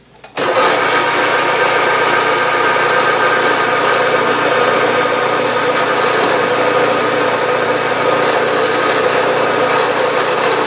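A Bridgeport milling machine's spindle switches on about half a second in and runs at a steady speed while a 3/16-inch pilot drill bores down into the workpiece, a steady machine hum with several held tones.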